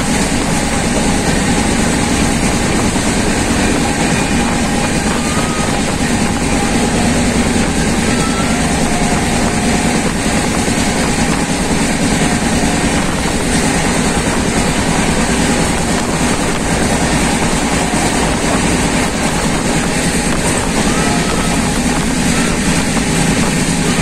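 Steady running noise of trains at speed: a continuous rumble of wheels on rail mixed with rushing wind, with no let-up.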